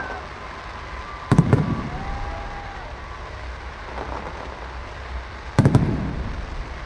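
Aerial fireworks shells bursting overhead: two loud bangs about four seconds apart. Each bang is a quick cluster of sharp cracks followed by a short rolling echo, over a steady low rumble.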